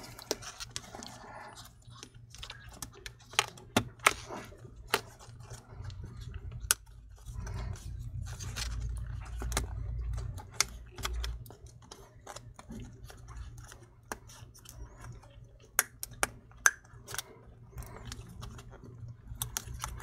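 Scattered light clicks and taps of small plastic and metal laptop parts being handled as the DC jack cable is routed and pressed into place, with a low rumble of handling noise about halfway through.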